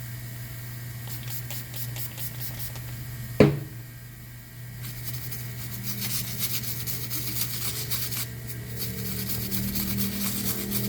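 Brush scrubbing a circuit board in quick repeated strokes, over a steady low hum, with one sharp click about three and a half seconds in.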